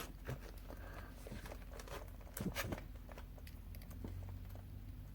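Faint handling of plastic mechanical pencils: light clicks and taps as they are picked up and set down, with a small cluster of clicks about two and a half seconds in.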